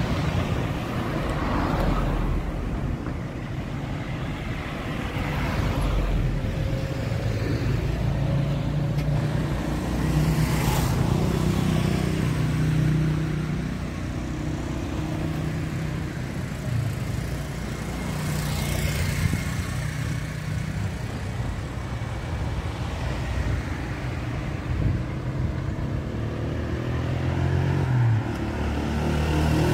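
Road traffic: motor vehicle engines running steadily, with vehicles passing close about a third of the way in and again a little past halfway.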